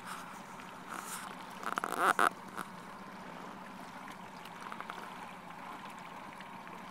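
Water lapping and splashing against the hull of an inflatable boat over a low steady hum, with a short, louder burst of splashing and knocks about two seconds in.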